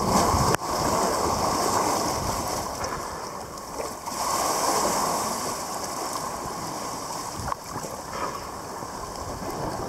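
Sea water lapping and sloshing close to the microphone, a steady wash of small waves against the rocks and the camera at the water's surface.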